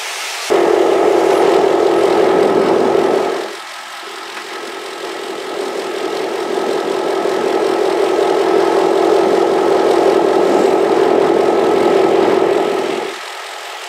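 Loud, steady engine drone with a strong hum. It starts suddenly, breaks off briefly after about three seconds, swells back and stops near the end.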